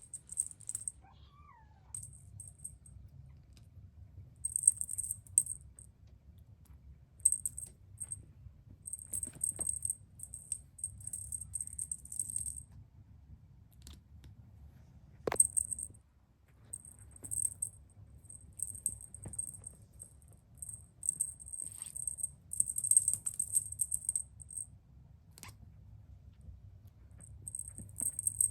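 A small bell jingling in irregular short bursts of a second or so, high-pitched, over a faint low hum, with one sharp click about halfway through.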